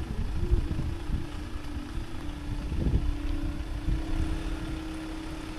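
Level crossing barrier machine humming steadily as the barriers are raised. Under it is a low rumble of an idling car and wind on the microphone.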